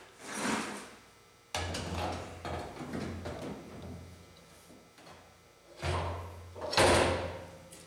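Aluminium fuel cell being lowered into a car's rear cargo area and shifted into place: metal knocks and scraping against the body, a sudden clunk about a second and a half in, and the loudest clunk near the end.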